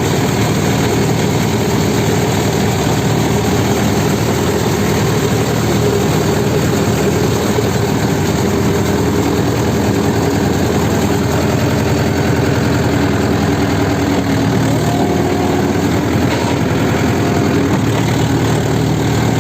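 Mahindra 475 tractor's diesel engine running steadily at an even speed.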